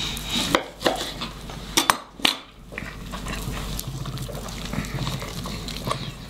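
Eating grilled pork on the bone: a few sharp clinks and taps of tableware in the first two and a half seconds, then softer chewing.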